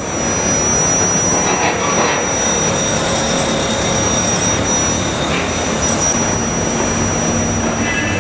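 Excavator's diesel engine and hydraulics running steadily under load, with a thin high whine throughout and a few short squeaks about a second and a half in and again near the middle.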